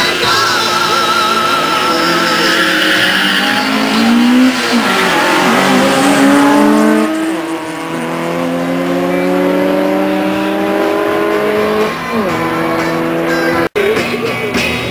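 Two drag-racing cars accelerating hard off the start line and down the strip. Their engines rev up steadily and drop back at each gear change before climbing again.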